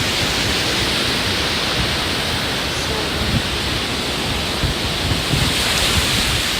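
Ocean surf washing in steadily, with wind rumbling on the microphone; the wash swells louder about two-thirds of the way through.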